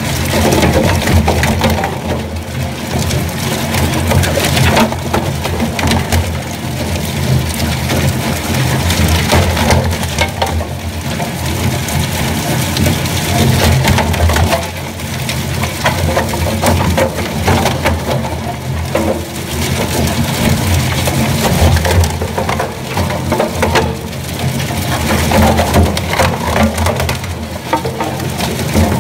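Industrial shaft shredder running, its rotating cutter shafts chewing through black rubber ring fittings: a steady low motor and gearbox hum under dense, irregular cracking and crunching. The loudness swells and dips every few seconds as the blades catch and tear each ring.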